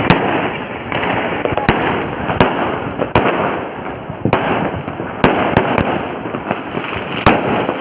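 Diwali firecrackers going off: a dense, continuous crackling with many sharp, loud bangs scattered irregularly through it.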